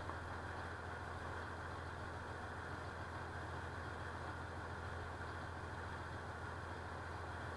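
A river ferry's engine running steadily, a low even drone under a haze of noise.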